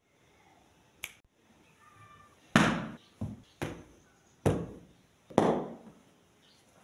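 Hands slapping and plumping throw cushions on a velvet sofa: about six soft thumps over a few seconds, a light one about a second in and three much louder ones among the rest.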